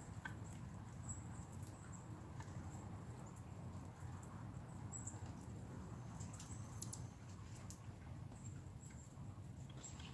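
Quiet outdoor ambience: a steady low rumble with faint, brief high-pitched chirps and scattered small clicks and ticks.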